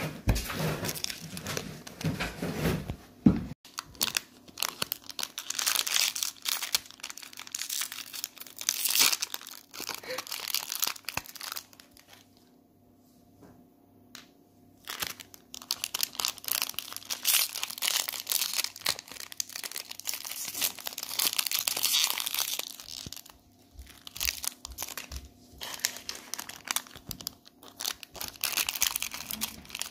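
Surprise-toy packaging crinkled and torn open by hand, with a quiet pause of a few seconds about twelve seconds in.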